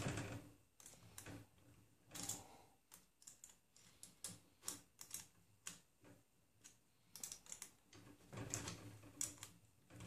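Faint, irregular small clicks and taps of a hex key working the bolts on a 3D printer's X carriage, with soft handling rustle. The bolts are being tightened until the carriage no longer wobbles.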